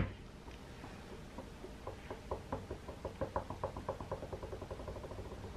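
One sharp knock at the start, then a run of quick light taps, about five or six a second: a makeup brush dabbing into an eyeshadow palette to pick up a shimmery shade.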